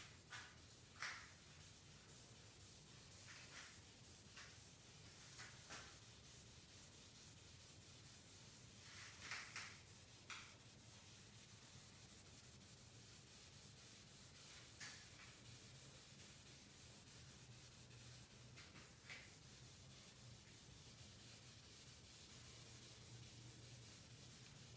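Faint rubbing of a cloth pad wiping finish onto a walnut tabletop: a handful of short, soft strokes at irregular moments over a faint steady low hum.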